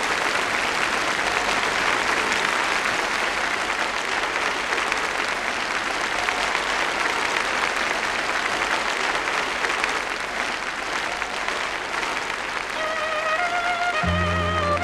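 Concert hall audience applauding. Near the end, instrumental music starts, with a stepping melody joined by sustained low notes.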